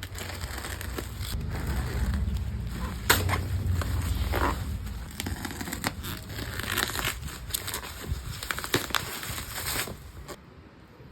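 Packaging being handled and unwrapped: crinkling and tearing with irregular clicks and knocks, and a low handling rumble in the first half. It quietens near the end.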